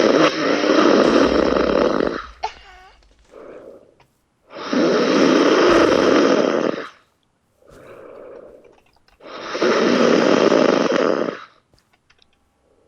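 Loud snoring: three long snores of about two seconds each, roughly every four and a half seconds, with a shorter, quieter breath between each.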